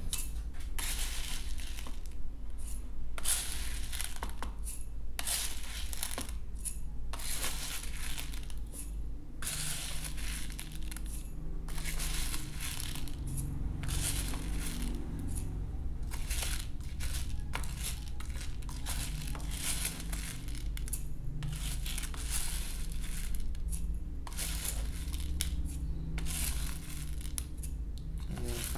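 A spoon scraping, stirring and scooping dry granular bird feed in a plastic tub, in an irregular run of short rustling, rattling strokes over a low steady hum.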